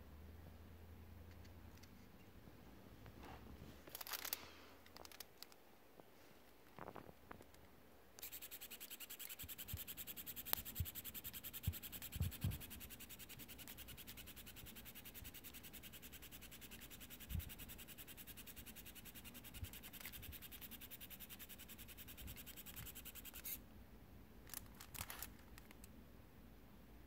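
Monoprice MP Select 3D printing pen's filament feed motor running as a fast, even buzz for about fifteen seconds, starting about eight seconds in and stopping near the end, as it pushes PLA filament through the hot nozzle. Faint rustles and clicks of aluminium foil and handling come before and after it.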